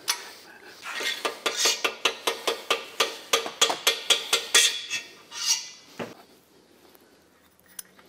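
Rapid metallic taps of a hammer on the main bearing caps of a Holden 304 V8 block, about five a second, knocking the caps loose for removal. The taps stop about five seconds in.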